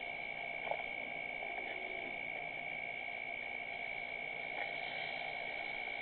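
Steady night-time chorus of calling insects: a constant high-pitched drone over an even hiss, with one faint knock about a second in.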